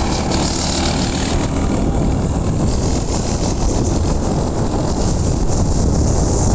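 Small generator (genset) engine on a motorized bicycle running steadily.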